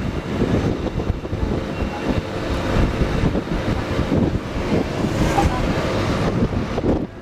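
Wind buffeting the microphone on the open upper deck of a moving sightseeing bus, gusty and uneven, over the running of the bus and street traffic.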